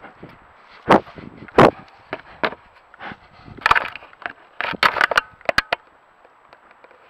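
A bear nosing and pushing against a trail camera: loud knocks, clicks and scrapes on the camera housing with rustling of fur against it. There are two sharp knocks in the first two seconds and a quick cluster of clicks near five seconds in.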